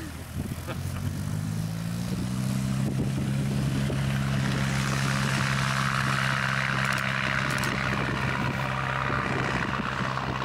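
de Havilland Tiger Moth's Gipsy Major four-cylinder inline engine and propeller, speeding up over the first two seconds or so and then running steady as the biplane taxis.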